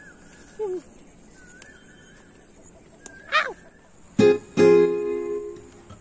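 Faint warbling bird calls, with one louder call sweeping down in pitch just after three seconds. About four seconds in, strummed acoustic guitar chords start and become the loudest sound.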